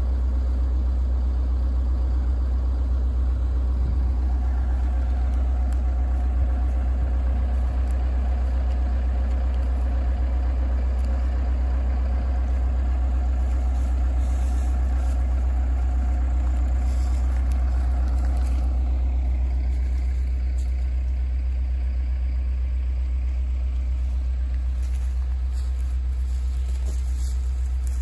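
Excavator's diesel engine running steadily with a deep drone, easing a little about two-thirds of the way through.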